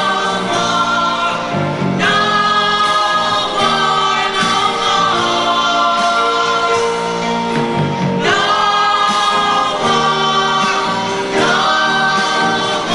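A mixed choir of adults and young people singing together in long held notes, with new phrases starting about two, eight and eleven seconds in.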